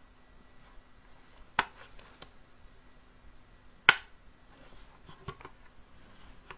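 Back panel of a 3D-printed plastic photo frame being handled and snapped into the frame: a few sharp plastic clicks, the loudest about four seconds in as the panel's latch clicks in.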